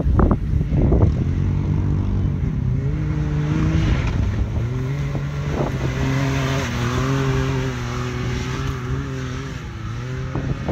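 Can-Am Maverick X3 side-by-side's turbocharged three-cylinder engine running at steady high revs as it drives across loose sand, the pitch holding nearly level. A rush of sand spraying from the tyres as it slides by in the middle, with wind gusting on the microphone near the start.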